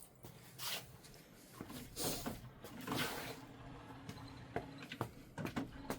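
HP OfficeJet Pro 8710 inkjet printer's paper-feed and carriage mechanism running: several short swells of gear and roller noise, then a few sharp clicks near the end. It is a gear noise that the owner puts down to dried-up oil on the roller bar and print-head carriage bar.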